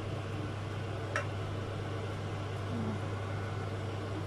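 Egg and grated potato frying in a nonstick pan over a steady low hum and an even hiss, with one sharp tap of a wooden spatula against the pan about a second in.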